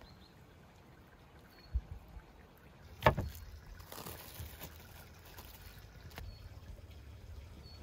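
A single sharp knock about three seconds in, then plastic cling film crinkling as it is pulled open from around a raw beef fillet.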